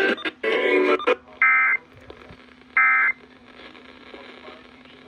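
Emergency Alert System end-of-message data bursts: short, buzzy digital warbles. A harsher burst comes at the start, then two clean bursts about a second and a half apart. A steady low hum runs underneath.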